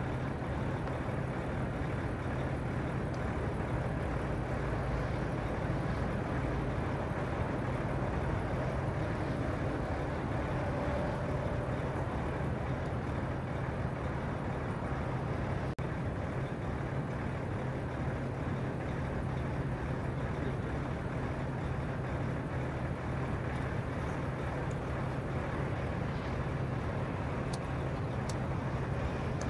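Truck engine idling steadily: a low, even hum with no change in speed.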